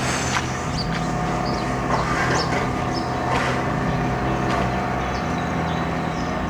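Steady mechanical hum made of several held tones, with a few faint short high chirps over it.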